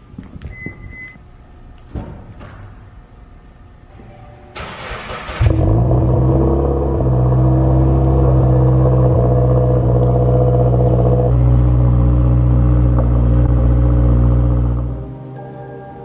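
Subaru WRX's 2.0-litre turbocharged flat-four (FA20DIT) cold-starting: a short beep and some clicks first, then the engine cranks and catches about five seconds in and settles into a loud, steady fast idle. The sound cuts off about a second before the end.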